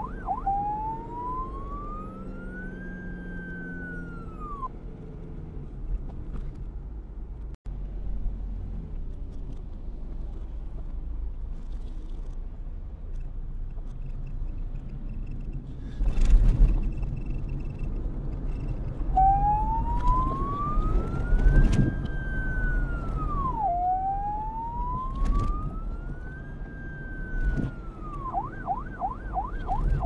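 Electronic police siren played in reverse. It begins with a fast warble, then gives slow sweeps that climb and drop away quickly, falls silent for a long stretch in the middle, and returns to the fast warble near the end. A low rumble and a few sharp thumps sit underneath.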